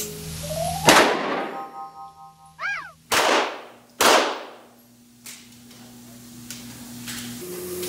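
Background music with held electronic notes and a brief rising-and-falling sweep, under three loud, sharp, echoing cracks about a second in, then at three and four seconds, with fainter ones after: pistol shots in a covered range.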